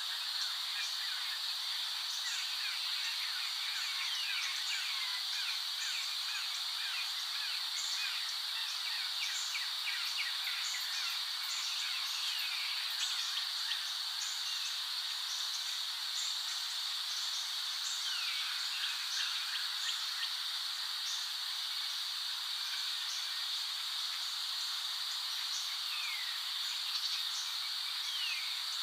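A chorus of small calling animals: a steady high trill with many short chirps over it and a few falling whistles now and then.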